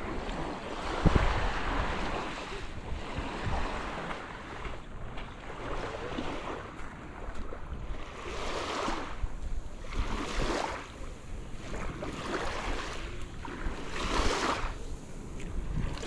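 Small Gulf waves breaking and washing up on a sandy beach, the surf swelling and fading several times, with wind rumbling on the microphone.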